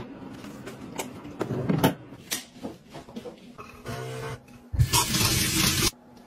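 Light clicks and knocks of a drawer and small items being handled. About four seconds in comes the brief whir of an automatic foam soap dispenser's small motor, followed by about a second of loud rushing water from a tap.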